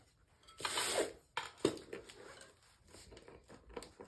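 Tire irons prying the bead of a spiked ice tire off a dirt bike's front rim: a short scraping rush of rubber about half a second in, a sharp metal click a moment later, then light scattered taps and scrapes.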